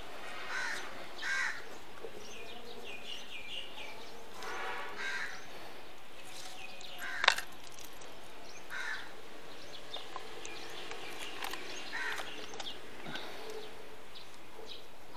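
Short bird calls now and then over a steady outdoor hiss, with one sharp click about seven seconds in.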